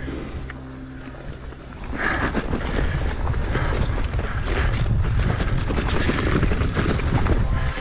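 Wind rushing over the microphone with the clatter of a mountain bike rolling over a rough trail, loud and continuous from about two seconds in. Before that, a fainter held tone fades out.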